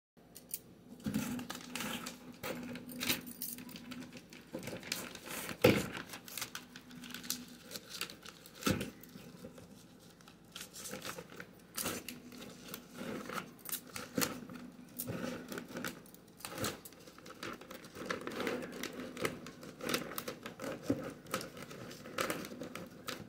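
Bangles clinking on a wrist and a thin clear plastic sheet crinkling as hands handle it against a cardboard box, in a stream of irregular clicks and rustles, with one sharper knock about six seconds in.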